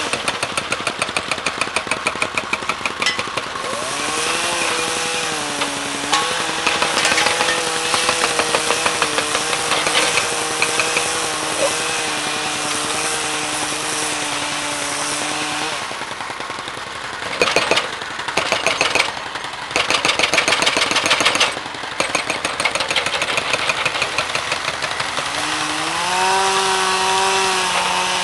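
A small engine-driven power tool running with a fast clattering rattle. Its engine pitch shifts about four seconds in and rises near the end, with louder bursts of clatter around the middle.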